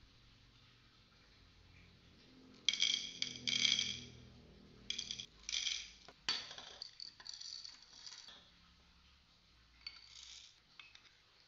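Roasted coffee beans poured out of a small plastic bottle, rattling and clattering into a plastic cup in several short bursts.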